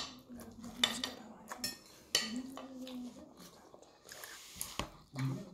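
Metal fork scraping and clinking against a ceramic plate as salad is scooped up: several short strokes, about a second apart.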